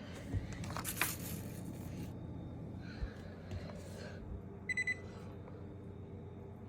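Frigidaire refrigerator's electronic control panel beeping: a quick run of about four short, high beeps a little past the middle. Under it runs a low steady hum, with a brief rustle and a couple of clicks in the first two seconds.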